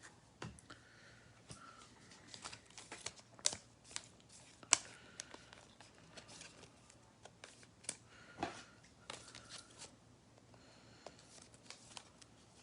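Faint handling of trading cards and their plastic and paper packaging: scattered light clicks, taps and soft crinkles, a few slightly sharper ones around the middle.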